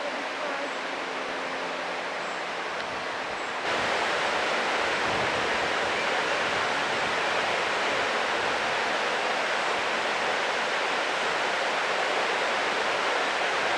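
Steady, even hiss with no distinct events, stepping up abruptly in loudness about four seconds in.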